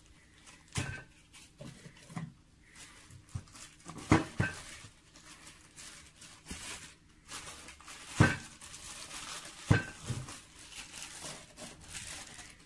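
Plastic packaging being handled: a foam sleeve and a plastic bag are pulled off an eyepiece, rustling and crinkling, with scattered clicks of plastic and three sharp knocks, about 4, 8 and 10 seconds in.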